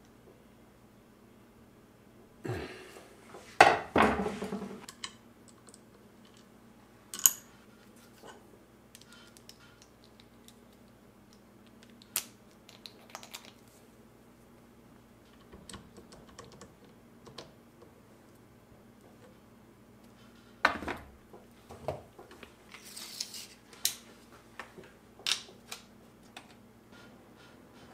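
Tools and small parts handled on a workbench: scattered clicks, knocks and rattles, with a loud cluster of knocks a few seconds in and another run of clicks near the end, over a faint steady hum.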